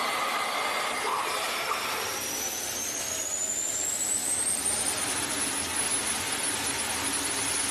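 Fighter jet's turbine engine spooling up: a high whine climbs steadily in pitch for about three seconds, then holds one steady tone over a constant rush of jet noise.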